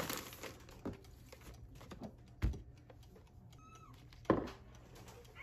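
A plastic zip-top bag crinkles as it is handled, then kitchen items, including a glass jar, are set down on the countertop with two sharp thumps. A brief high squeak comes between them.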